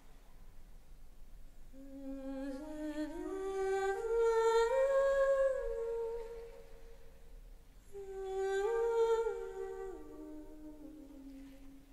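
A voice humming a slow wordless melody in two phrases with gliding steps between notes: the first climbs and falls back, and the second, after a short break, rises briefly and sinks lower.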